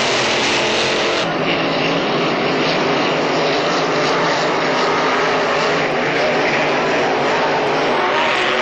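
Racing hydroplanes running at speed on the course, a loud, steady engine sound.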